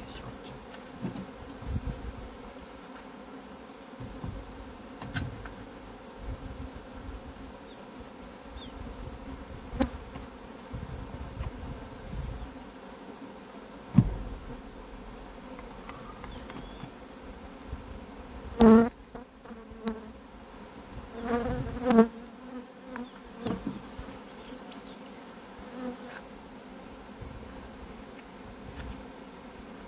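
Honeybee colony buzzing steadily from an open hive. A few knocks and thumps of wooden hive frames being handled come through, the loudest bunched in the second half.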